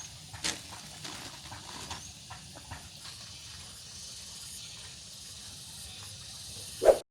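Scattered light knocks and clicks over a steady hiss, with one loud thump just before the sound cuts off.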